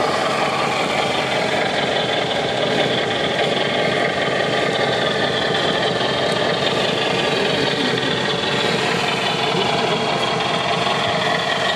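Scale RC 8x8 trial truck crawling over rocks, giving a steady engine-like running sound with faint whining tones that drift slowly in pitch.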